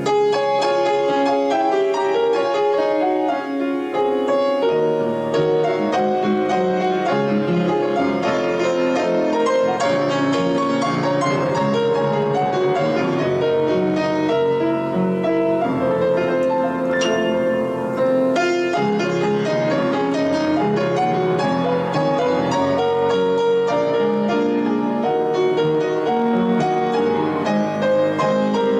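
Instrumental piano music for the offertory, a steady flow of sustained notes and chords.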